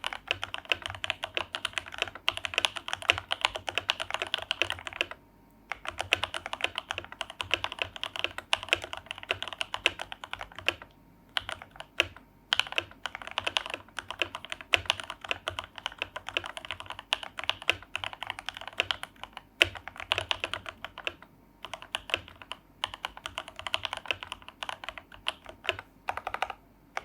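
Typing test on a Grid 650 65% custom mechanical keyboard with lubed Banana Split switches, filmed, on a 4 mm plate: fast, continuous keystroke clacking with a few brief pauses.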